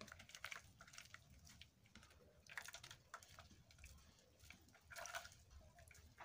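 Faint wet squelching and crackling of freshly churned butter being squeezed and gathered into a ball by hand in buttermilk, the butter now separated from the buttermilk. It comes in three spells: at the start, about two and a half seconds in, and about five seconds in.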